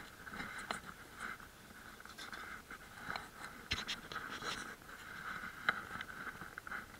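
Faint steady hiss, with scattered clicks and crunches of footsteps on gravel and handling noise.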